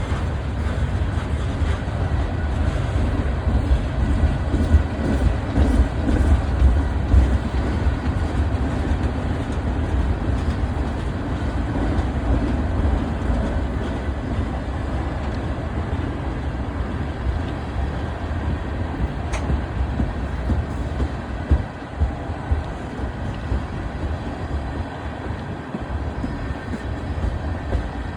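BNSF freight train rolling past: a steady, heavy rumble of the train and its wheels on the rails, easing a little after about twenty seconds.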